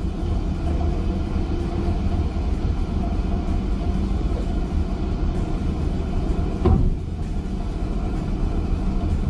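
Steady low rumble and hum of a trawler's engines and trawl winches hauling a full codend of pollock up the stern ramp. A single knock comes about two-thirds of the way through.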